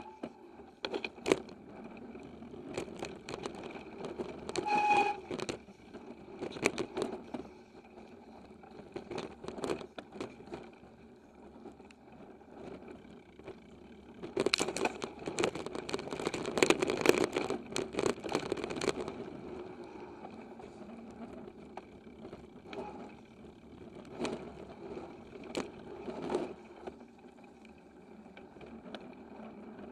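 Giant XTC 2 hardtail mountain bike riding over dirt singletrack, picked up through a handlebar camera mount: tyre rumble with frequent sharp knocks and rattles from the bike. A stretch of heavy clattering over rough ground runs from about 14 to 19 seconds in.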